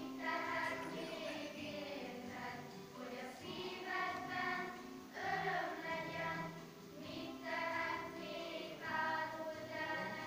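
A children's choir singing a song in short phrases of held notes.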